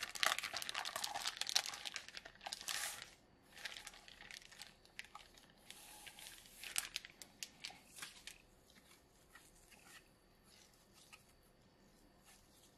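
Clear plastic bag crinkling as a drive enclosure is slid out of it. It is loudest for the first three seconds, then comes in scattered crinkles and light ticks that die down to faint handling sounds after about eight seconds.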